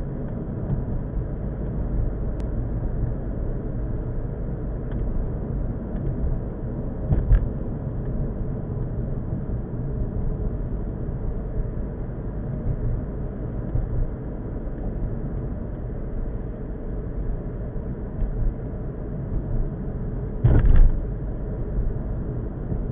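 Car driving at steady speed, heard from inside the cabin through a dashboard camera: a steady low rumble of engine and tyre noise. A short thump comes about seven seconds in and a louder one near the end.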